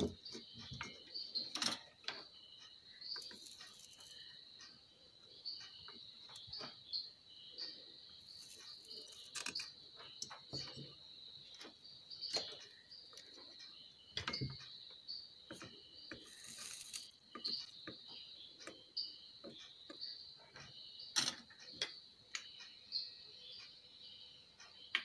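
Faint scattered clicks and knocks of an amplifier circuit board and small parts being handled on a workbench, over a steady high-pitched chirping trill.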